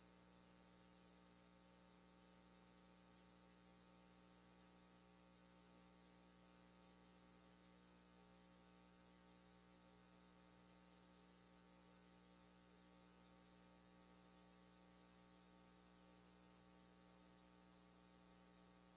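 Near silence apart from a faint, steady electrical hum made up of several constant tones.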